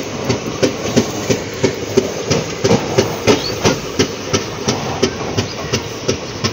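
Express train running at speed, its wheels clicking over the rail joints in a steady clickety-clack of about three knocks a second over a rumbling hiss.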